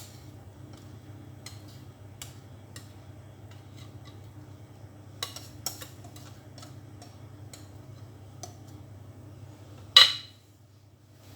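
Light clinks and taps of a utensil against a bowl while cake batter is scraped out into a cake mould, with one sharp, loud knock of kitchenware on the counter near the end.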